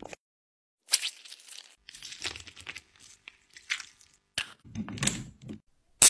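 Close handling noises from a small plastic dropper bottle: scattered light crinkling and small clicks as it is opened and squeezed, with a sharper click near the end.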